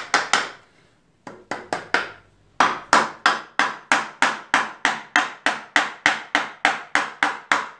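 Hammer tapping a wooden piece down into a cross-lap joint, driving it home over a hidden screw. A few light blows, a brief pause, then a steady run of about three taps a second.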